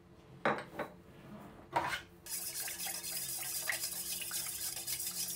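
Two brief knocks, then fingers stirring orange blossom water in a stainless steel bowl: a steady swishing and splashing as vanilla powder is dissolved in the liquid.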